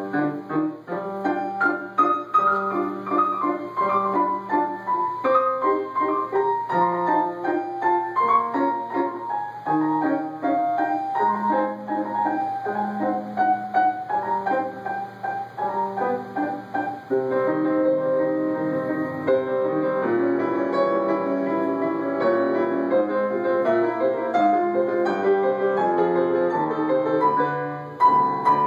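Grand piano played solo: a moving melody over lower notes, the playing turning fuller and more sustained a little past halfway.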